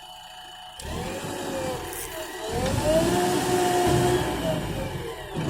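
JCB backhoe loader's diesel engine coming in abruptly about a second in. It revs up about halfway through, holds the higher speed under hydraulic load, then drops back toward idle near the end.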